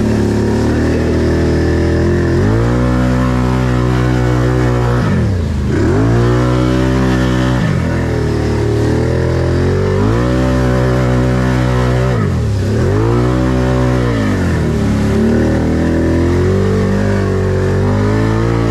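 Can-Am 1000 ATV's V-twin engine running under throttle, revs building, then twice dropping off sharply and climbing again, about five and twelve seconds in.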